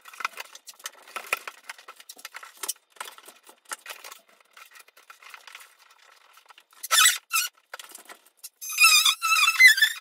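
Blue painter's tape being pulled off the roll, squealing in loud, ragged strips, about two-thirds of the way in and again near the end. Before that, faint crinkling of the cardboard template and tape being pressed against the ceiling.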